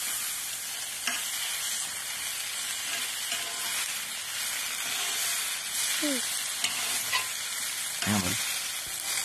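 Sausages and onion rings sizzling on a hotplate over a campfire: a steady frying hiss with faint crackles. A brief voice-like sound comes about eight seconds in.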